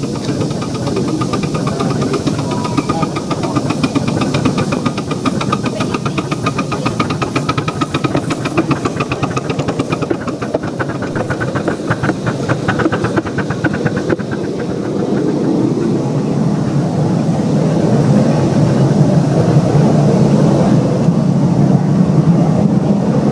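Miniature passenger-carrying steam locomotives running on a garden railway: a fast, even beat of exhaust and wheels on the track, with steam hissing. In the second half a loaded train hauled by a scale BR Standard Class 4 tank engine rolls past close by, the sound growing into a heavier, louder rumble.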